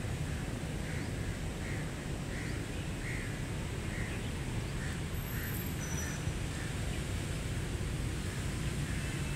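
An animal's short call repeated evenly, about once every two-thirds of a second, a dozen times over, over a steady low rumble.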